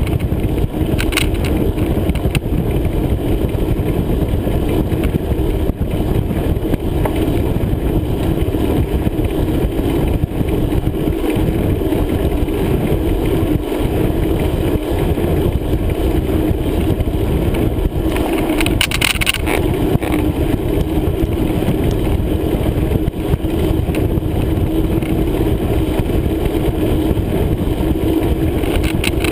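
Steady rumbling noise of a bicycle on the move: wind buffeting the camera microphone together with tyre noise, with one brief higher-pitched sound about two-thirds of the way in.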